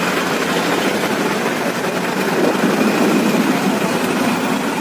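Bus engine running and road noise heard from inside a moving bus: a steady rumble that swells slightly about halfway through.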